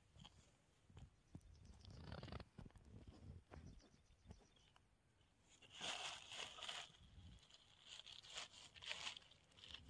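Hands kneading and scraping a crumbly rice-bran and flour bait mix on a woven plastic sack, giving irregular crunching and crinkling rustles of the plastic. The rustling is loudest about six seconds in and again near nine seconds.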